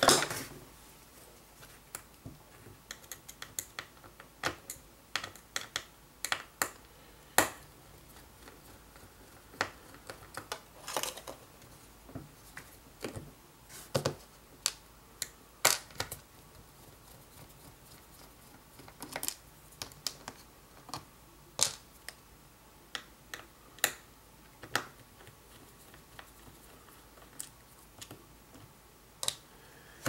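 Small tri-wing screwdriver clicking and ticking against screws and metal parts inside an opened MacBook Pro laptop, in scattered, irregular light clicks, some louder than others.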